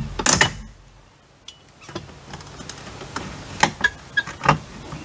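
Pry bar working nails loose from an old window's nailing flange: sharp metal clicks and knocks, the loudest just after the start, then a quick run of several more about three and a half to four and a half seconds in.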